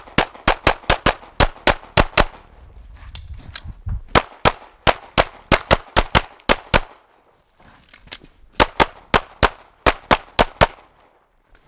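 Handgun fired in rapid strings during a practical pistol stage: three bursts of about ten sharp shots each, a few per second, separated by gaps of a second or two.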